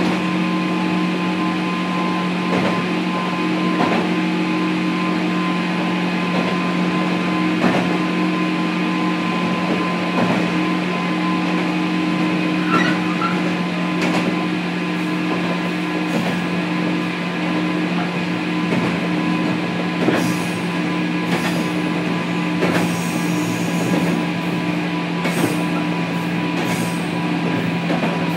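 Inside a 103-1500 series electric train car: a steady hum from its onboard equipment, with irregular clacks every second or few from the wheels.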